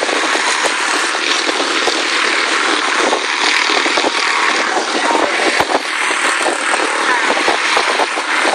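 Quarter midget race cars' small engines running at racing speed as the pack laps a small oval, a steady loud buzz that does not let up.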